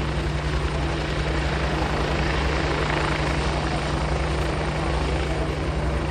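A Bell 47 Sioux and a Westland Scout helicopter hovering low together: the steady, fast chop of their rotors over the drone of their engines.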